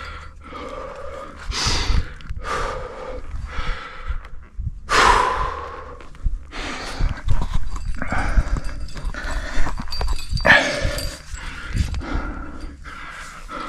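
A rock climber breathing hard: a run of loud, gasping breaths, the loudest about five seconds in.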